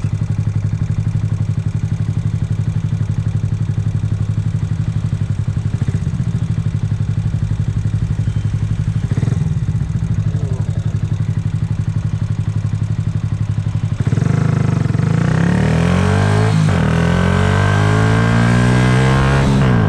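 Yamaha YZF-R125's single-cylinder four-stroke engine running steadily at low revs. About fourteen seconds in it gets louder and the revs climb as the bike pulls away and accelerates, with one gear change partway through the climb.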